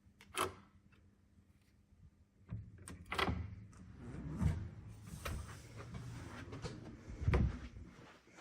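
Elevator's two-panel center-opening doors sliding, with a clunk, a stretch of low rumbling with knocks, and a heavy thud a little past seven seconds in as the panels stop.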